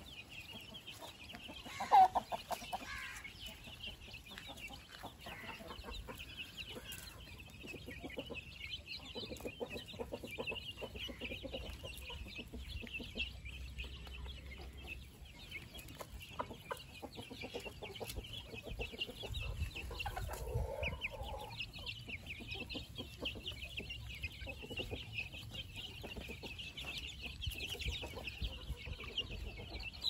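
A flock of young country chickens peeping continuously in short, high chirps. One loud call stands out about two seconds in, and a lower clucking call comes around twenty seconds in.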